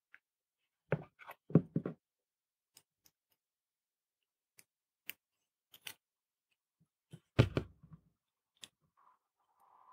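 Small parts being handled on a workbench: a few knocks about a second in, scattered light, sharp clicks after that, and a heavier knock about seven seconds in.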